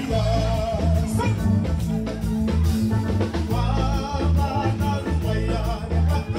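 Live band playing a song with a steady beat: male voices singing into microphones over electric guitar, drum kit and keyboard.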